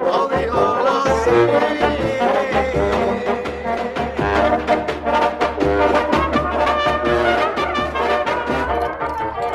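Music led by brass instruments, with a steady beat.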